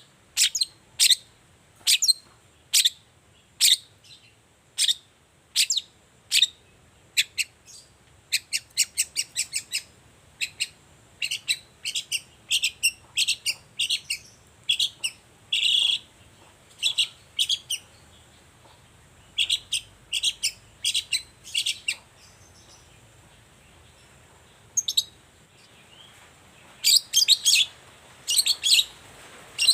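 Long-tailed shrike (cendet) calling in short, sharp high notes, about one a second at first, then in quicker runs, with a pause of a few seconds before a last fast burst near the end.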